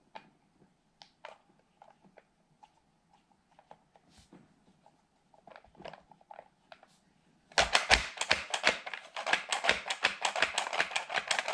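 Plastic parts of a Play-Doh toy press being handled, with scattered light taps and clicks. About two-thirds of the way in, this gives way to a dense run of rapid, irregular plastic clicking and rattling as the press is worked.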